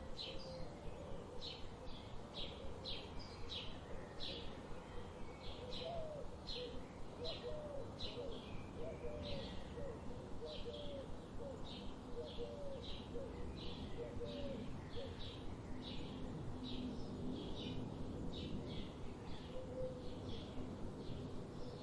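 Birds singing: short high chirps repeated steadily, about two a second, over a lower wavering call that fades out about halfway through and comes back briefly near the end.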